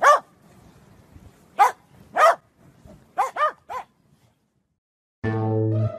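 Corgi barking: about six short, high barks, some single and some in quick pairs, over the first four seconds. A music track starts near the end.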